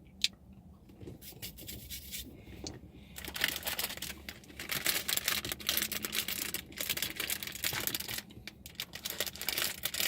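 Candy packaging being handled: a single click near the start, then steady crinkling and rustling from about three seconds in.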